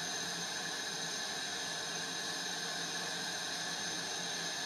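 Propane-oxygen lampworking torch flame hissing steadily.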